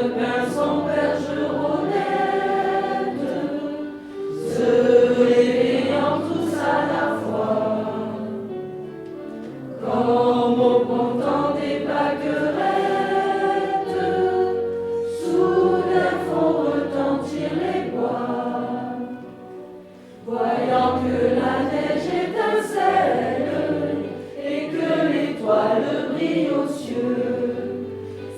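A choir singing a Christmas song with instrumental accompaniment, in sung phrases separated by short breaths.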